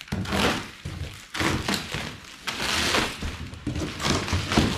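Black plastic stretch wrap being cut and torn off a large cardboard box, rustling and ripping in several bursts, with the box knocked about as it is handled.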